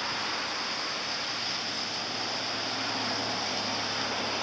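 Rain falling steadily, an even high hiss with no breaks.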